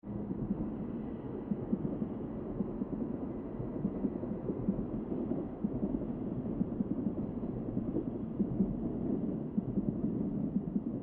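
A low, steady rumbling drone with a rough, flickering texture, cutting in suddenly out of silence.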